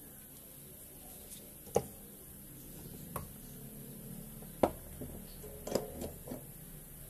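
Small parts and tools being set down and handled on a workbench: about five sharp knocks and clicks, two of them louder, about two seconds in and just past halfway.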